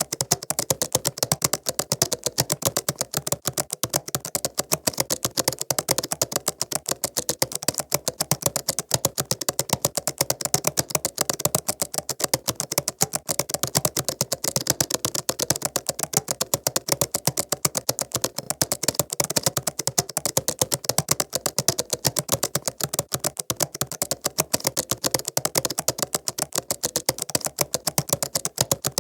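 Fast, continuous typing on a laptop keyboard: a steady stream of light key clicks, several a second, without pauses.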